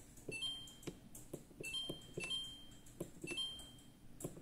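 Samsung RF268ABRS refrigerator control panel beeping as its freezer temperature button is pressed several times, each press a soft click and a short high beep as the setting steps.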